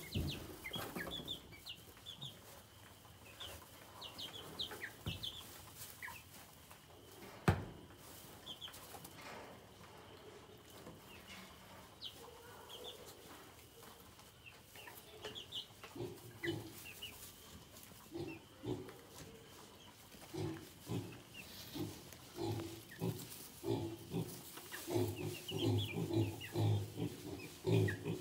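Four-week-old chickens, Cornish cross meat birds and egg-layer pullets, peeping with short high cheeps throughout. From about halfway on, quick low pulses grow denser among the cheeps, and a single sharp knock stands out about seven seconds in.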